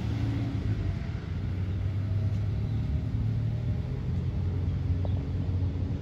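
Jet airliner engines heard from a distance, a low steady rumble.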